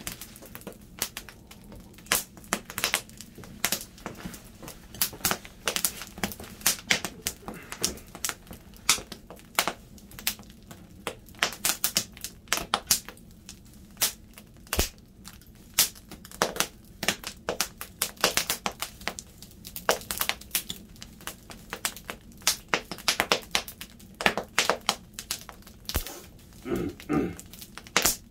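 Wood fire crackling, with irregular sharp pops and snaps several times a second.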